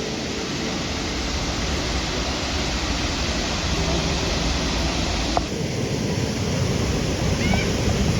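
Muradiye waterfall's falling water making a steady, even rushing noise, which shifts abruptly about five seconds in.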